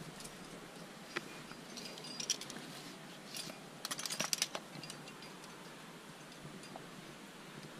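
Trad climbing gear on a harness clinking and jangling as the climber moves: carabiners and cams knocking together in short scattered clinks, with a quick flurry of clinks about four seconds in.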